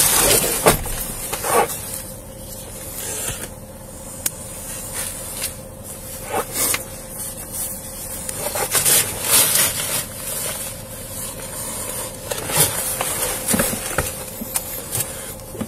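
Body-worn camera and clothing rubbing and rustling as an officer moves about in a patrol car's driver's seat, with scattered clicks and knocks and a faint steady tone underneath.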